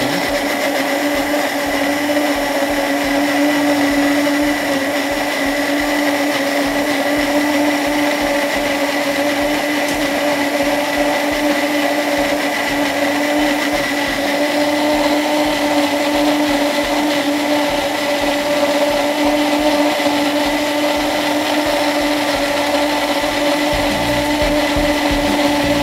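Countertop kitchen blender running steadily at one speed, blending a liquid lemon mousse mixture of lemon juice and water until creamy.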